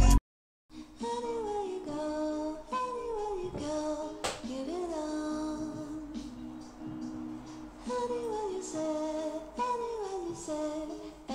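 Background music after a brief gap at the start: a soft song with a female voice singing, its melody falling in short phrases.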